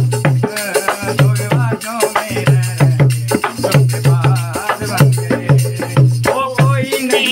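Recorded song playing during an instrumental passage: a steady drum beat under a wavering melody line.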